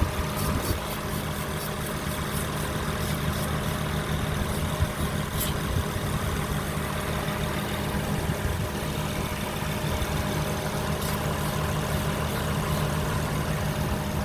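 Car engine idling steadily. The owner suspects a vacuum leak.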